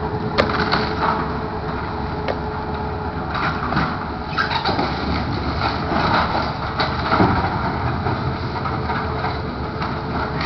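Demolition machinery at work: a tracked excavator and a skid-steer loader running their engines, with scattered sharp knocks and crunching of breaking building debris.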